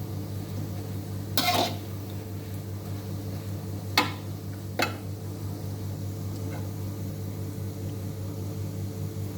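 A few sharp clinks of a cooking utensil against a pan or dish, about three times over several seconds, over a steady low hum.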